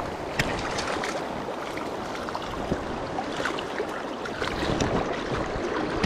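Steady rush of river water, with a few short, sharp splashing sounds.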